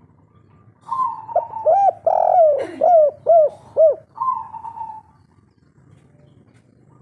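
Spotted dove (tekukur) singing one 'kuk 3' cooing phrase: a run of about five short rising-and-falling coos, then a longer held coo. It starts about a second in and ends around five seconds in.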